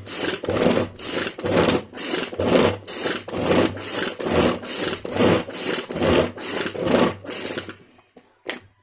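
Ganesh Quick pull-cord chopper being worked: the cord is pulled over and over, about two pulls a second, each pull spinning the blades through beetroot in the bowl with a rasping whir. The pulling stops about eight seconds in, followed by a single click.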